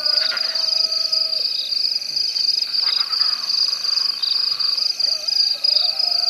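Night-time chorus of frogs and insects: a steady high-pitched trill pulsing rapidly, with fainter calls over it.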